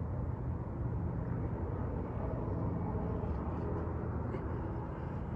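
Steady low outdoor background rumble with a faint even hum, typical of distant traffic or machinery.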